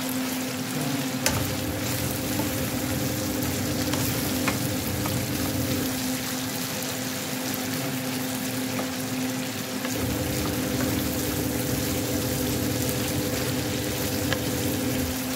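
Chicken strips sizzling as they fry in oil in a pan, nearly cooked, stirred and scraped around with a wooden spatula, with a few light clicks. A steady low hum runs underneath.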